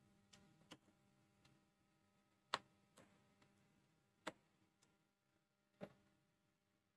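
A few short, sharp clicks about every second and a half, the loudest about two and a half seconds in, from a screwdriver and wire working the plastic screw terminals of a DIN-rail relay base; between the clicks it is near silent.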